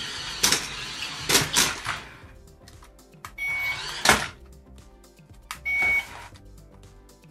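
Battery-powered RC transforming robot car toy driving and spinning in robot mode, its electric drive motors whirring in short bursts, with two short high electronic beeps a couple of seconds apart in the second half.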